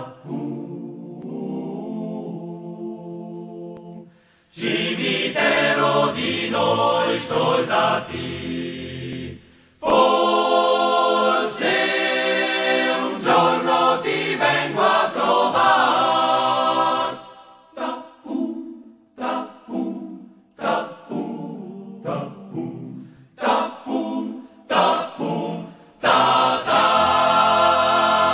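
Background music of a choir singing, largely unaccompanied, in long sustained passages broken up by a run of short separate phrases in the middle.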